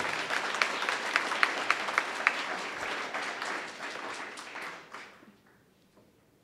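Audience applauding, with a few loud single claps standing out in the first two seconds; the applause dies away about five seconds in.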